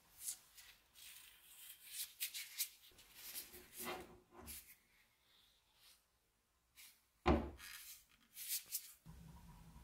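Gloved hands handling a small hunting axe: scattered rustles and light clicks, then one sharp knock with a dull thud a little after seven seconds in, the loudest sound, followed by a few more clicks.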